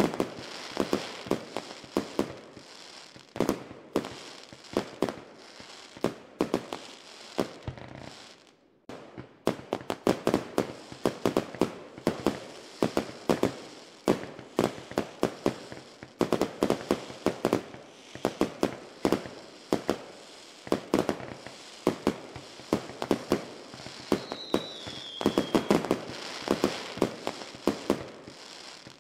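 Fireworks going off in rapid clusters of sharp pops and crackles, with a brief lull about nine seconds in. A short falling whistle sounds once near the end.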